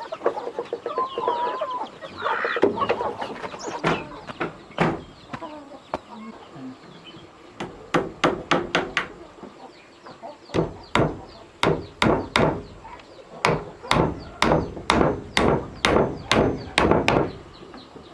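Chickens clucking, then from about eight seconds in a steady run of sharp strikes, roughly two to three a second, like hammering.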